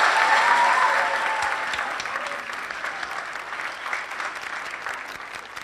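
Crowd of people applauding, the clapping loudest at first and dying away gradually.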